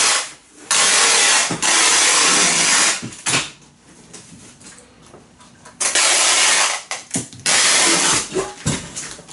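Packing tape being pulled off the roll in four long, loud rips, two close together at the start and two more about three seconds later, as strips are laid along a cardboard box. The tape is fabric-reinforced packing tape.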